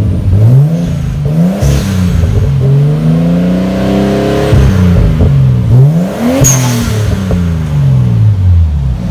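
Nissan Skyline R32 GTS-t's turbocharged RB20DET straight-six heard at the tailpipe, revved from idle: a few quick blips, a longer rev held near the top, then one more rise and a slow fall back to idle. The exhaust runs a test pipe in place of the catalytic converter. A short hiss comes twice, at the tops of revs.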